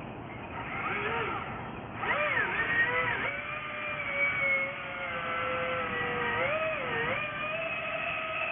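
The motor of a small vectored-thrust RC bottle boat whining as it runs on the water. Its pitch dips and rises with throttle changes about a second in, again around two to three seconds, and near seven seconds. It settles a little higher near the end.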